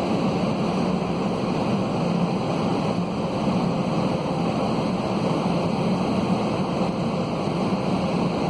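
Steady roar inside the cabin of an Airbus A320-211 airliner: the CFM56 turbofans and airflow around the fuselage, an even rushing noise with a low hum that does not change.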